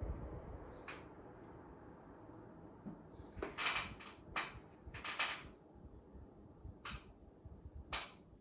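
Panasonic 1.0 HP wall-mounted air conditioner's indoor fan dying away after a beep, then a series of about eight sharp, short clicks, several in quick succession about halfway through.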